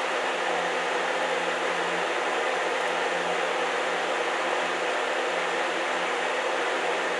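TIG welder running with a steady electrical hum and hiss while a weld is laid on a cracked steel mower-deck pulley. A single sharp click comes right at the end.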